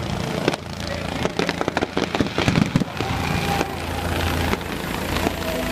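Helicopter flying overhead with a steady rotor and engine drone, mixed with fireworks popping and crackling, in a dense, loud run of pops from about one and a half to three seconds in.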